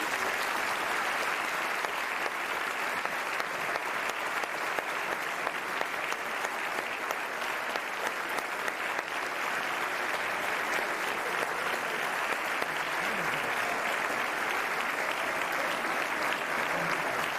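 Concert audience applauding steadily, a dense even clapping that holds at the same level throughout.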